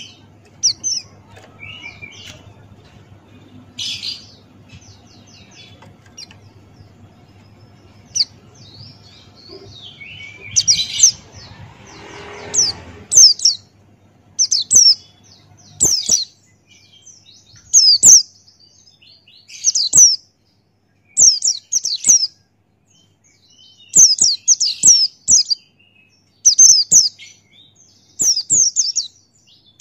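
Pleci (white-eye) calling and singing: scattered high chirps for the first half, then a run of loud, sharp, high calls, each falling in pitch, coming every second or two.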